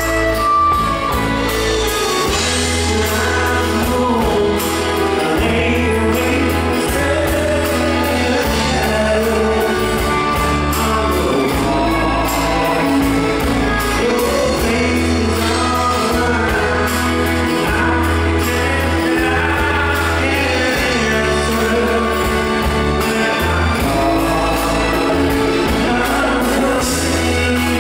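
Live band performing a song: a lead vocal over bass guitar, acoustic and electric guitars and drums, with a steady pulsing bass line.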